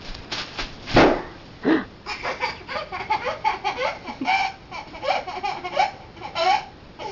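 Bubble wrap crackling and popping in the first second, with one loud pop about a second in, then a small child laughing in quick repeated giggles.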